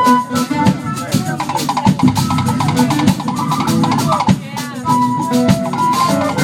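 Live band playing, led by a drum kit with snare and bass drum, with guitar and bass below and a flute playing a melodic line of held and sliding notes.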